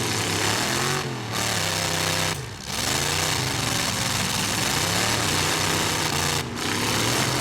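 Demolition derby trucks' engines revving, rising and falling in pitch over and over, with a loud rough rasp. The sound dips briefly three times.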